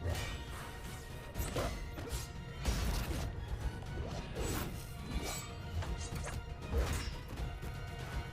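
Film soundtrack of a sword duel: dramatic score under a rapid series of sharp blade clashes and hits, about a dozen of them, with occasional swishes.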